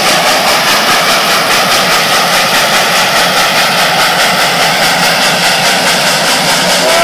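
Reading & Northern 4-6-2 steam locomotive No. 425 running at speed, its exhaust beating in a fast, even rhythm under a loud, steady rush of wind and road noise from the car pacing it.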